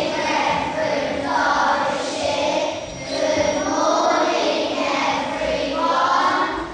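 Congregation of children and adults singing together in unison, in held phrases of a second or two each.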